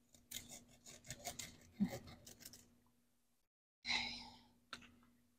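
Hand pruning shears snipping and rasping through a cactus stem in a run of short cuts, followed about four seconds in by a sharper crunch and a click as a dried-up section is cut away.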